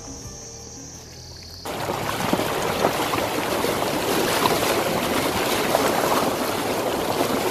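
Soft music with a high insect-like trill, then about a second and a half in a sudden cut to loud rushing, splashing water as an SUV's wheel ploughs through a shallow river.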